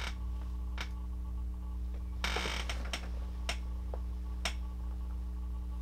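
Steady low electrical hum with a few faint scattered clicks and a brief rustle about two seconds in.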